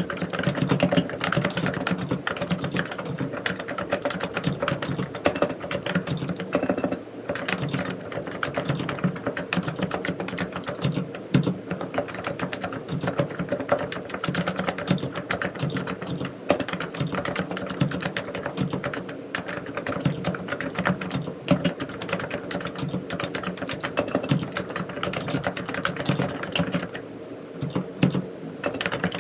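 Continuous fast typing on a Realforce R3 silent tenkeyless keyboard with 45 g Topre electrostatic capacitive switches: a dense run of soft, muted keystrokes, easing off briefly twice.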